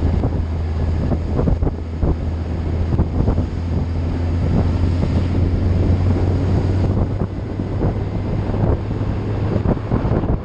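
Wind buffeting the microphone of a moving vehicle, over a steady low engine hum.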